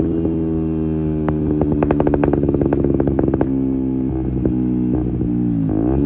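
KTM Duke 125's single-cylinder engine running through an Akrapovic exhaust at a steady pace, with a quick string of crackling backfire pops from the exhaust through the middle. Near the end the revs drop briefly and climb again.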